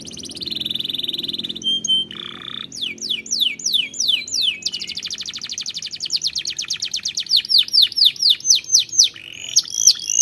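Domestic canary singing: quick runs of repeated sweeping whistled notes, with a short buzzy phrase about two seconds in and a long, fast rolling trill of the same note from about five seconds in.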